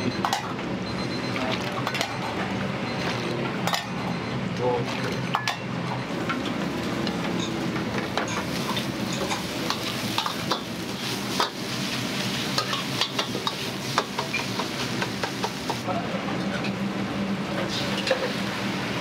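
Food sizzling in a wok, with a metal ladle scraping and clinking against the pan over and over, over a steady low hum.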